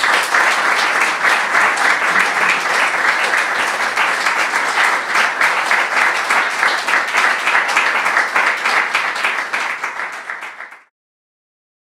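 An audience applauding, a dense, steady mass of hand claps that cuts off abruptly near the end.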